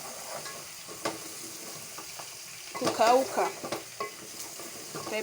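Beef, onions, garlic and ginger sizzling as they fry in hot oil, with a few sharp clicks as the pot is stirred. The onions are at the golden-brown stage and the meat is starting to dry and brown.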